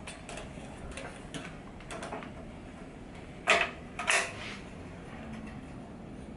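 Metal wire skimmer clinking and scraping against a stainless-steel pot while penne is scooped out of the cooking water: several light clinks, then two louder clanks a little past halfway.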